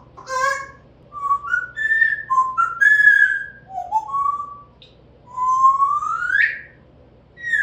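African grey parrot whistling: a run of short whistled notes stepping up and down in pitch, then one long whistle rising steeply, and a falling whistle near the end.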